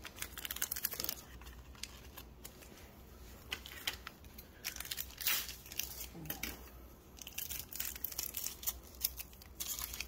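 Foil trading-card booster pack wrappers crinkling and tearing as they are handled and opened, in many short, irregular crackles.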